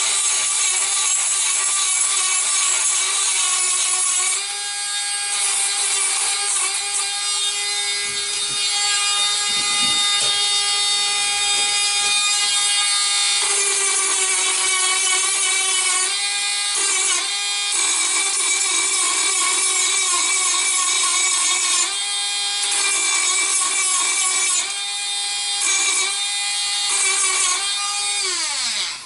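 Dremel rotary tool with a worn grinding stone, running at high speed and grinding into the battery power tray around the MIDI fuses. Its high whine dips in pitch several times as the bit is pressed into the work. Near the end the tool is switched off and winds down with a falling whine.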